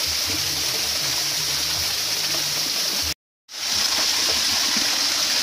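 Steady rush of flowing stream water. It cuts out suddenly for a moment just past the middle, then comes back.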